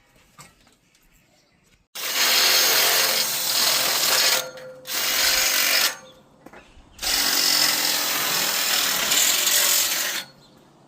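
Power drill running in three bursts, the longest about three seconds, while fixing the end pieces onto Unistrut steel channel for a roof rack.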